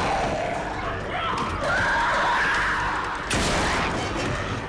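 Film fight soundtrack: handgun gunfire against a wavering, cry-like shriek from the zombie crowd, with a sharp shot about three-quarters of the way through.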